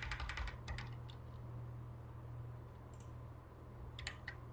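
Computer keyboard and mouse clicks: a quick run of key presses at the start, then a few single clicks about three and four seconds in, over a steady low hum.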